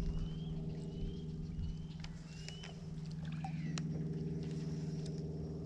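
A motorboat engine running with a steady low drone, with short rising bird chirps repeating over it about once a second.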